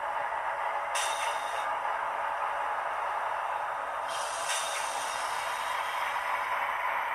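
GE GEVO-12 diesel prime mover sound from the sound decoder of an HO scale ET44AC model, playing through its small speaker as the locomotive backs slowly along the track: a steady hum, with two short hisses about one second and four seconds in.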